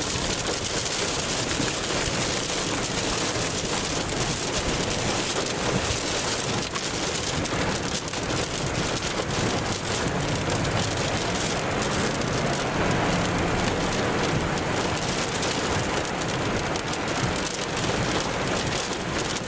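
Steady roar of a large tornado at close range, mixed with heavy rain hissing on surfaces.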